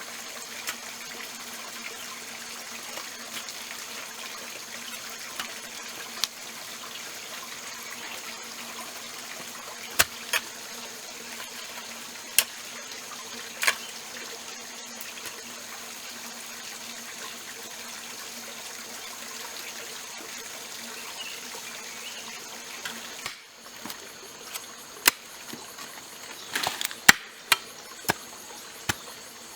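Steady forest background of trickling water and a faint insect hum, with a few isolated sharp clicks. After about 23 seconds it changes to a run of sharp knocks, like an axe chopping into a rotten tree trunk.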